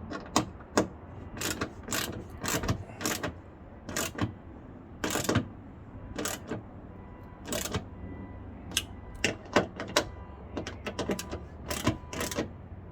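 Socket ratchet clicking in short, irregular runs while a hood latch's 10mm bolts are snugged down, with a few sharp metallic knocks and rasps of tool handling.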